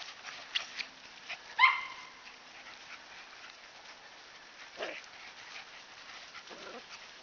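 Standard Poodle puppies yipping at play: a few short, high yips spread out, the loudest about a second and a half in.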